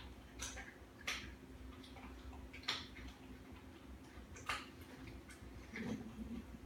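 Faint low hum with a few sharp isolated ticks a second or more apart; about six seconds in, a soft thud as a bearded dragon lunges and snatches a hornworm caterpillar in its mouth.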